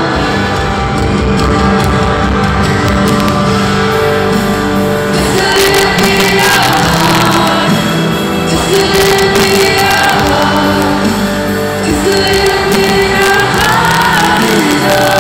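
Live pop ballad played by a band through an arena PA, with a male lead voice singing, heard reverberant from high in the stands. From about five seconds in, the crowd's shouts and cheers come up over the music.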